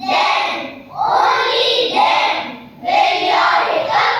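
A children's chorus chanting verses in unison, in rhythmic phrases of about a second with short breaks between them.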